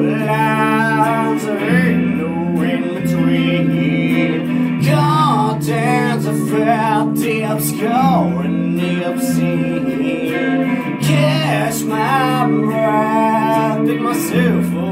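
Electric guitar and bass guitar playing a rock song together, with sustained low bass notes changing every second or two, a man's singing voice over them and cymbal-like hits in the background.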